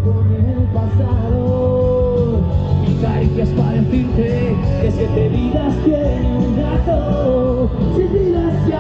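Rock band playing live: electric guitars over bass and drums, with a voice singing the melody.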